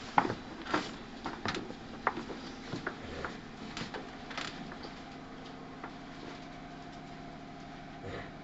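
Inside a JR 211 series 5000-number electric train car (KuMoHa 211-5009): irregular clicks and knocks over the first four or five seconds, then a steady hum of the car's equipment with a few fixed tones.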